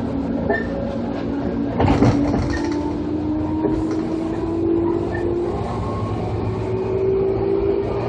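205 series electric train running, its external-fan traction motors whining in a tone that climbs slowly in pitch as the train gathers speed, over a steady rumble of wheels on rail. A short clatter of wheels over a rail joint about two seconds in.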